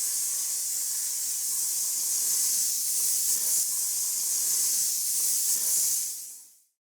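Aerosol spray can spraying paint: one long, steady hiss that fades in at the start and fades out near the end.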